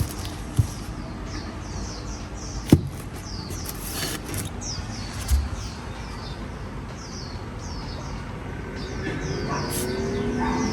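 Small birds chirping over and over, short falling chirps about twice a second, with a few sharp knocks; near the end a low hum rises in pitch and grows louder.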